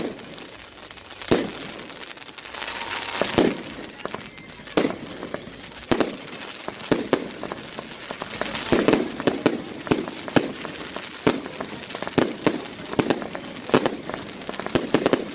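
Fireworks battery firing: shots launching and bursting with sharp bangs over a crackling hiss, sparse at first, then coming in quick succession, about two or three a second, through the second half.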